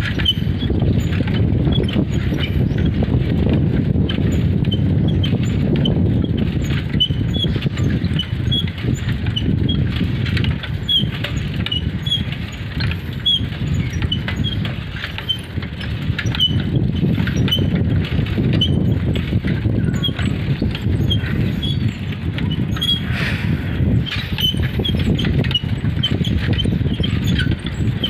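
Wind buffeting the microphone while riding along a road, a loud, steady low rumble, with faint short high chirps recurring every second or so.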